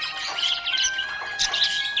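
Budgerigar chirping and warbling in quick, busy bursts, over background music with a slow melody of held notes.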